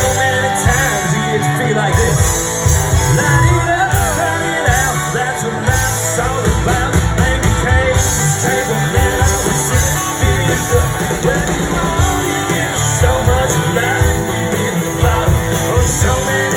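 Live rock band playing with guitar, drums and singing.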